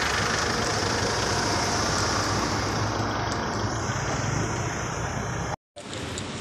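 Steady street traffic noise: engines of cars and motorcycles running, a continuous low rumble. The sound cuts out completely for a moment about five and a half seconds in, then comes back a little quieter.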